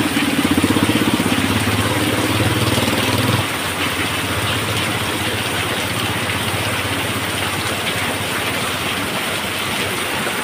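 Heavy rain pouring down, a dense steady hiss of rain on the street and the roof overhead. For the first three seconds or so a vehicle engine idles under the rain, then it cuts off suddenly.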